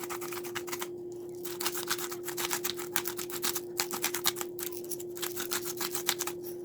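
Hands rubbing a lemon and salt over a raw leg of lamb: busy runs of small wet clicks and rubbing, in several bursts with short pauses, over a steady low hum.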